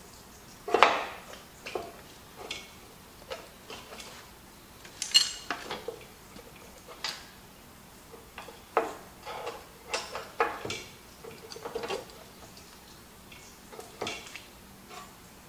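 Hand tools and steel parts clinking and knocking irregularly against the steel boom and lift cylinder of a skid steer loader during reassembly. The loudest knock comes about a second in, and one clink about five seconds in rings briefly.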